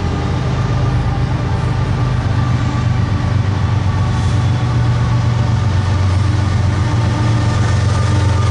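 Canadian Pacific diesel locomotive approaching on the main line, its engine a loud, steady low rumble that grows slightly louder as it nears.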